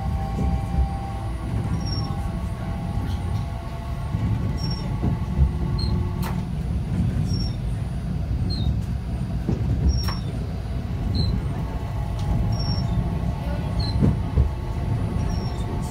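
Cab interior of a low-floor articulated light-rail car under way: a steady low rumble of wheels on rail with a faint motor whine. Sharp wheel clicks over rail joints or points come about six and ten seconds in, with short high pips repeating every second or two.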